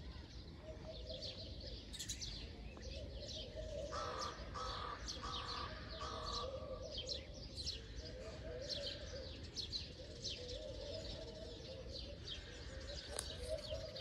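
Birds calling: many short, high chirps and twitters throughout, with a lower call repeated four times about four seconds in.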